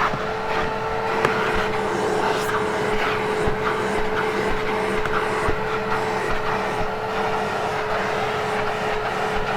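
Hoover Hushtone upright vacuum cleaner running steadily on carpet, its motor holding one constant whine over a rushing airflow, with a few faint ticks as debris is sucked up.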